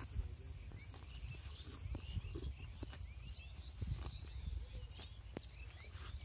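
Cow grazing, tearing at the grass with irregular sharp snaps, while small birds chirp in the background over a low rumble.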